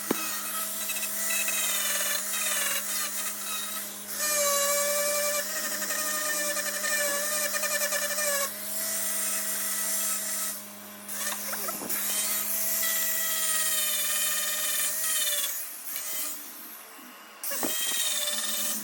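A small high-speed power tool whining, its pitch wavering and dipping as it works, with two brief drops in level. Under it runs a steady electrical hum that stops about three-quarters of the way through.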